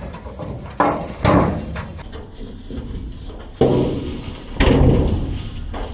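A cow's hooves knocking and clattering on a truck's metal bed and tailgate as it jumps down from the truck, a series of heavy knocks about a second in and again from about three and a half seconds.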